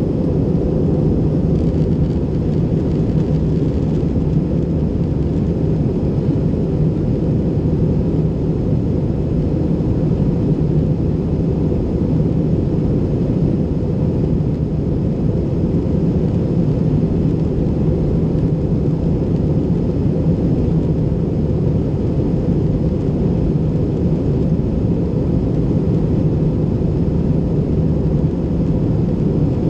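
Steady roar of an Airbus A320's engines and rushing air heard inside the passenger cabin while the jet climbs through cloud after takeoff, a deep even rumble with a constant low drone and no change in level.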